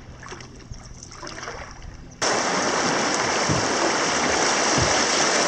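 About two seconds of quieter, calm river water, then an abrupt switch to loud, steady rushing and splashing of river rapids, heard from a kayak running through them.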